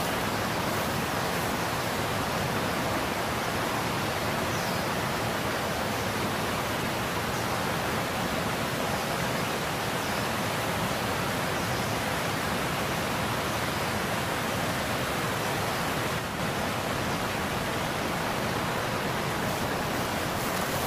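Steady rush of water pouring from a concrete drain outlet into a ditch, an even hiss at a constant level throughout.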